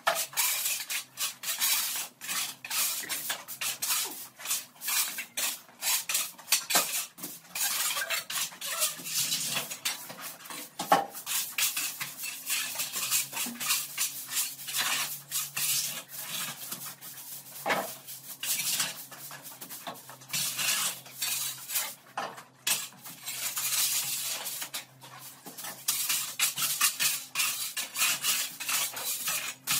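Metal shovels scraping and brooms sweeping across a dusty concrete floor: a quick, irregular run of scrapes and strokes that overlap.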